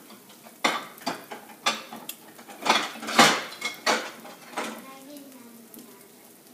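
Kitchen utensils and dishes clattering as they are handled: a quick run of sharp knocks and clinks over about four seconds, the loudest a little past the middle.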